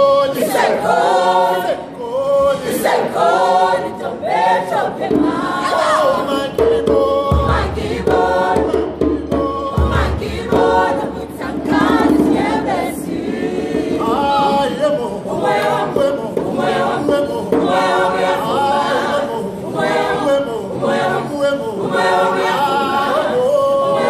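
Mixed-voice South African choir singing a traditional song unaccompanied, in close harmony, with rhythmic hand-clapping.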